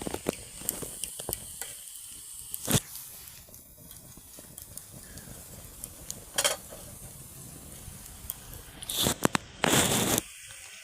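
Wood fire crackling and popping inside a tin-can hobo stove heating water, with scattered sharp snaps and a louder noisy burst of about a second near the end.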